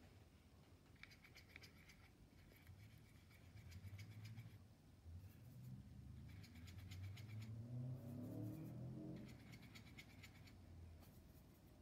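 Faint scratching of a paintbrush rubbed over the watercolour pans in a tin palette, in several short bouts of a second or two each. A low rumble swells in the background through the middle and fades.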